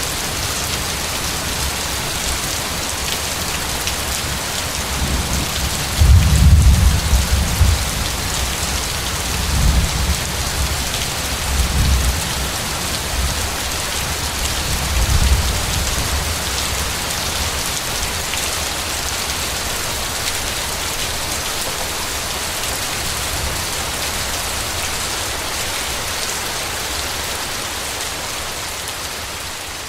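Steady heavy rainfall with rolling thunder: a deep rumble breaks about 6 seconds in and rolls on in weaker peals until about 16 seconds. The rain then carries on alone and begins to fade out near the end.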